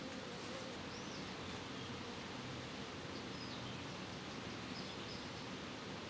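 Steady outdoor hiss with the faint hum of Buckfast honeybees around their hives and a few brief, faint high bird chirps.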